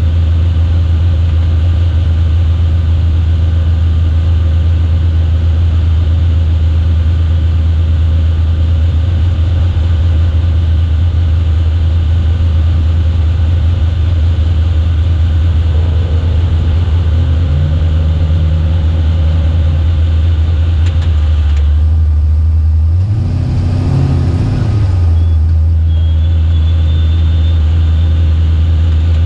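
Vehicle engine running loud and steady at a constant speed, with a brief drop and swell in pitch about three-quarters of the way through.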